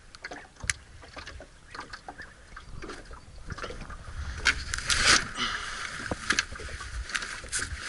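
Small clicks and knocks of gear being handled in a small boat over a faint steady hiss, with a louder burst of rustling about four and a half seconds in as the camouflage clothing is moved.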